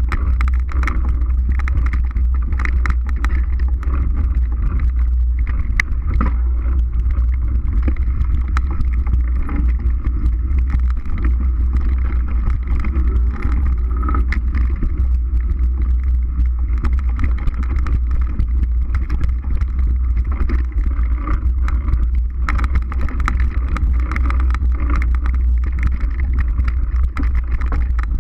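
Mountain bike riding fast over a dirt forest trail: a steady low rumble of wind buffeting the microphone, with frequent small rattles and knocks as the bike bounces over bumps.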